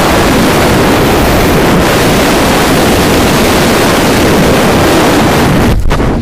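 Loud, steady rush of wind on the jumper's camera microphone during wingsuit flight at about 100 km/h. Near the end the rush drops and breaks up as the flier pitches up and slows.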